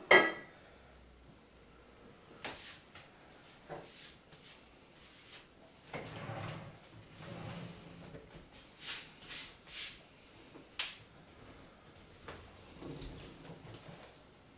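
Wooden kitchen cabinet doors and drawers opening and shutting, with things being shifted about inside while someone rummages through the lower cabinets. A sharp knock comes right at the start, then scattered knocks, clatters and rustling.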